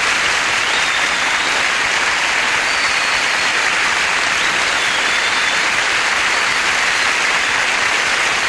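Studio audience applauding steadily after a song.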